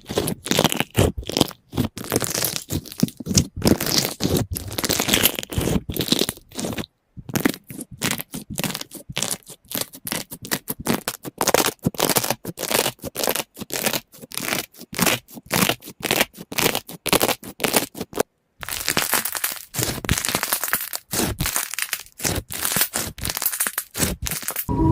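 Slime being squeezed and poked, giving a dense, continuous run of sharp crackling pops, broken off briefly twice.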